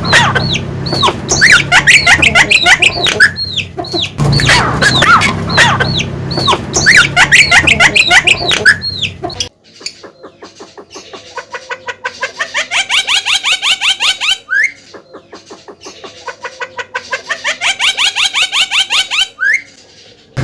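Javan myna (jalak kebo) calling loudly: a dense, varied stream of whistled arcs and harsh chatter. About halfway the sound changes suddenly to a quieter, fast even trill that climbs in pitch and ends in a rising sweep, heard twice.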